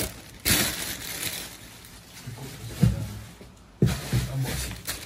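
Plastic packaging bags rustling as wrapped parts are handled, with two sharp knocks about three and four seconds in.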